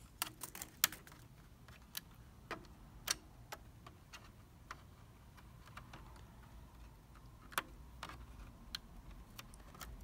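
Small, light clicks and taps of fingers handling an opened laptop's palmrest and keyboard cable connectors. They come as a quick run of clicks at first, then single clicks every second or so.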